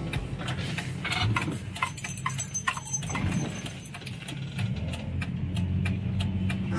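Engine of an XD Ford Falcon running at low speed, heard from inside the cabin as the car rolls slowly, with scattered clicks and knocks.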